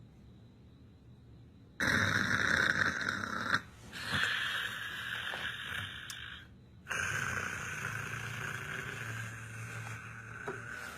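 A man snoring: three long snores with short pauses between them, the first starting about two seconds in.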